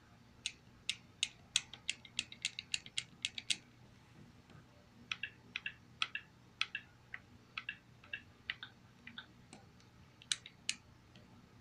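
Plastic buttons of a handheld remote clicking, pressed again and again to move the highlight across an on-screen keyboard. There is a fast run of about a dozen clicks, a short pause, then slower clicks, some in quick pairs, and two more near the end.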